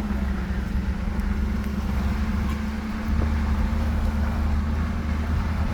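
A car driving slowly on a gravel road, heard from inside the cabin: a steady low rumble of engine and tyres with a faint steady hum above it.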